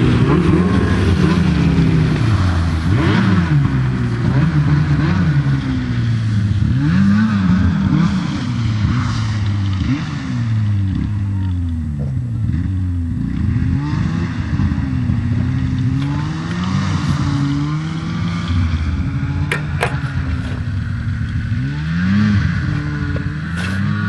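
Engine running, its pitch rising and falling over and over like repeated revving. A few sharp clicks near the end.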